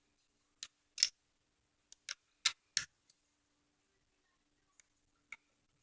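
Small parts of a home-made butterfly knife clicking and clacking as they are handled and fitted together by hand: about eight sharp, irregular clicks, the loudest about a second in, over a faint steady hum.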